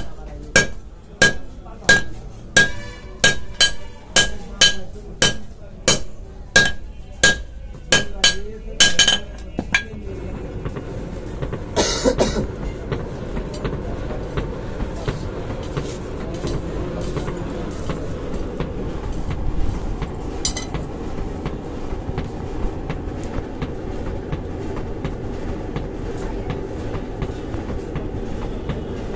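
Hand hammer striking red-hot knife steel on an anvil, ringing blows a little under two a second, stopping about nine seconds in. Then a steady rushing noise of the charcoal forge fire being blown hard by its air blower while the blade reheats, with a single clank about twelve seconds in.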